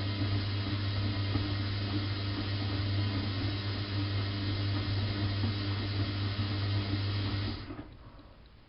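Bosch WFK 2431 washing machine running with a steady low hum and a hiss over it, then cutting off about seven and a half seconds in.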